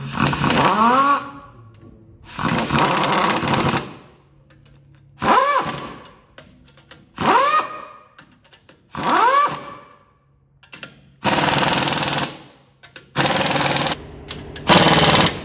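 An impact wrench running the U-bolt nuts down onto a leaf spring pad in about eight short bursts. Each burst starts with a brief whine that rises and falls as the wrench spins up, then goes into rapid hammering.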